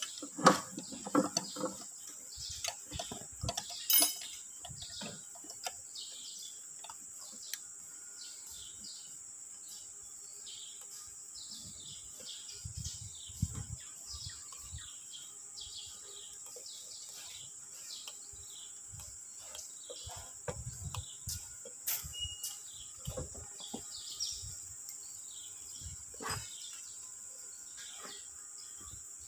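Birds chirping over a steady high insect drone, with sharp metal clinks in the first few seconds from parts being handled on a bare diesel engine block, and a few dull low knocks later on.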